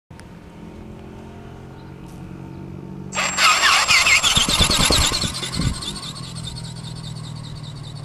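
Radio-controlled flapping-wing seagull ornithopter passing close by. A faint steady hum suddenly gives way, about three seconds in, to a loud whirring of its electric motor and gearing, with fast repeating strokes and heavy low thumps. It then settles into a steadier humming drone.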